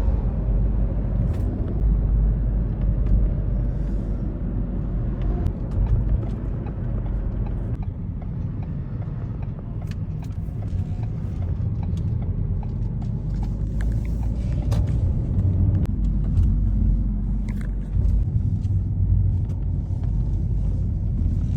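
Steady low rumble of a car driving, with no sudden events standing out.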